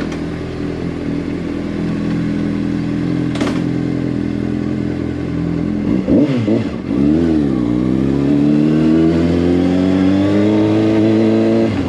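Motorcycle engine running as the bike is ridden. About six seconds in, the engine note dips and comes back up twice, then climbs steadily as the bike accelerates, until just before the end.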